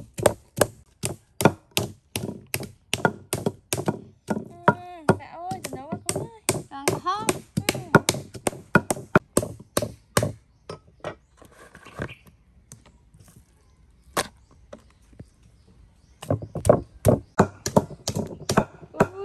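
A raw beef steak being struck over and over on a wooden chopping board, in fast, even blows of about three or four a second. The blows stop for a few seconds after about ten seconds, with only a few stray taps, then start again near the end.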